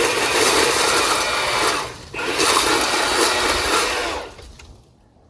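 Milwaukee M18 battery pole saw running on low speed, its chain cutting through wood in two runs with a brief break about two seconds in. The saw stops about four seconds in.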